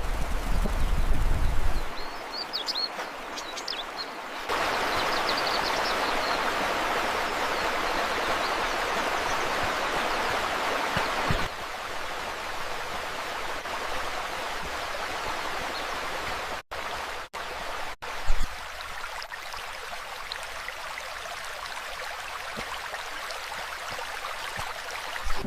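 Steady rushing of running water, with a few bird chirps early on; the sound shifts abruptly several times, with a low rumble at the start and a couple of brief dropouts later.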